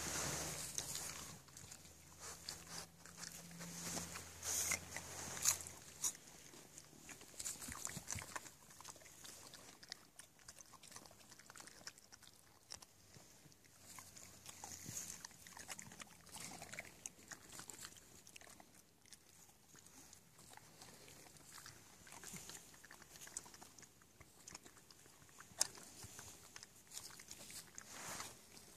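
A young European badger and a dog chewing shelled peanuts: faint, irregular crunches and clicks, a few louder ones between about four and six seconds in.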